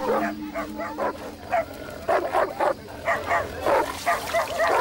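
Several dogs barking rapidly and repeatedly, two or three sharp barks a second: defensive barking at a cobra they have found.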